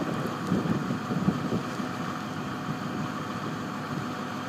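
Yard tractor's diesel engine running steadily, with gusts of wind rumbling on the microphone.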